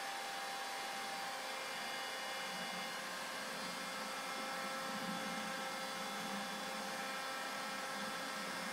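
Steady workshop room tone: an even hiss with a faint electrical hum made of several fixed tones, unchanging throughout.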